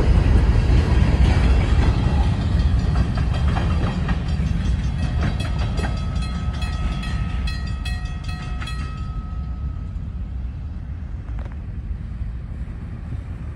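Freight train cars rolling on the rails, a low rumble of wheels that fades steadily as the train moves away. Midway there are some clicks and a few high metallic ringing tones from the wheels and rails, which die out well before the end.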